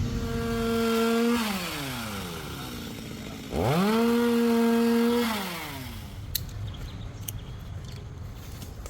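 Two-stroke chainsaw revved twice to full throttle, each time held briefly and then let fall back toward idle. A few sharp clicks come near the end.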